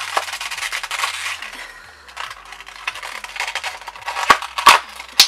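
Stiff packaging around an eyeliner pen crinkling and crackling as it is pried open by hand: a dense rustle for about the first two seconds, then scattered clicks and a few sharp cracks near the end.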